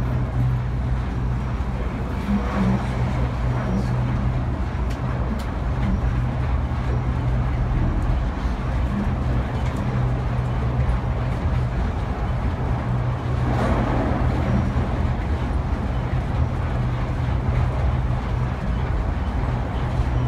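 Otis Hovair air-cushion people-mover tram running along its guideway, heard from inside the car: a steady low hum and rumble, with a brief swell of louder noise about two-thirds of the way through.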